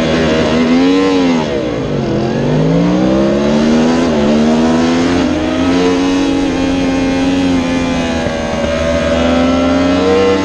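Yamaha R1 crossplane inline-four held at high revs on the starting grid, then launched: the revs rise, sag under load as the clutch is let out about two seconds in, and climb steadily, drop sharply at an upshift about four seconds in and climb again, before holding steadier through the next corner.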